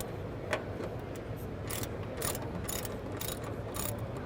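Hand ratchet with a 10 mm deep socket clicking in short runs, about half a dozen times, as a bolt is backed out.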